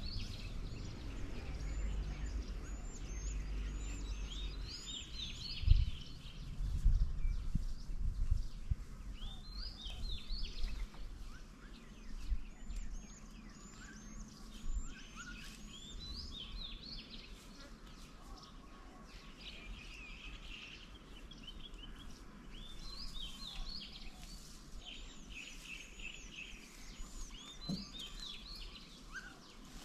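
Several small songbirds chirping and calling in quick, overlapping notes throughout. Low rumbling and thumps come in the first several seconds, with a sharp thump about six seconds in.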